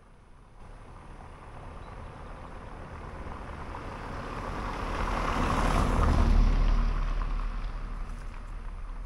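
A road vehicle passing by: engine rumble and tyre noise grow steadily louder, peak about six seconds in, then fade as it moves away.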